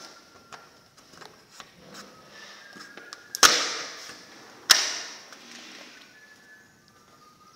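Two sharp bangs about a second and a half apart from a white window or door frame being pushed shut or struck, each ringing out briefly.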